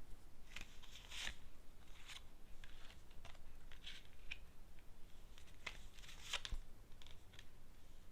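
Fortune-telling cards being drawn and laid out by hand: a series of faint, scattered soft slides and taps.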